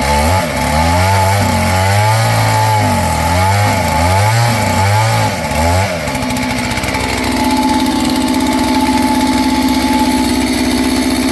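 Kit-built clone two-stroke chainsaw running hard while cutting into a tree. For the first half its pitch dips and rises repeatedly as it loads in the cut, then it holds a steady high pitch.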